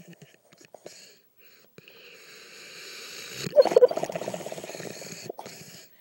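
Sleeping Italian mastiff snoring and breathing noisily while dreaming: a long breath builds up about two seconds in and breaks into a loud, sudden, pitched huff about three and a half seconds in, then trails off as snoring before the end.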